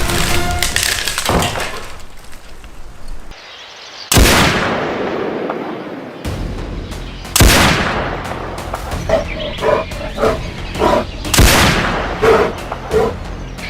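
Three rifle shots a few seconds apart, each sudden and loud with a long echoing tail.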